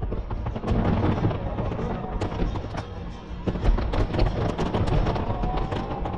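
Aerial firework shells bursting in rapid succession: a dense run of sharp bangs and cracks over a continuous low rumble.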